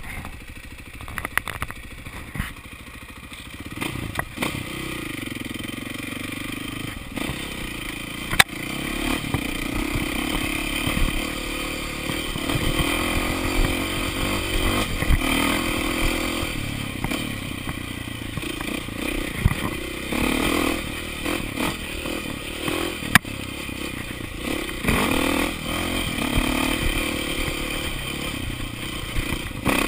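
KTM enduro motorcycle engine running low for the first few seconds, then revving up and down while riding a rough dirt trail. The bike clatters and scrapes over the ground, with a couple of sharp knocks.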